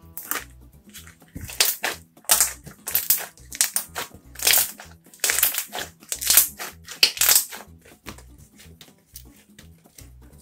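Hands kneading and squeezing a soft slime made from Elmer's school glue, sending out irregular squelching pops of trapped air bubbles. The popping is loudest and thickest through the middle and thins out near the end as the slime is stretched.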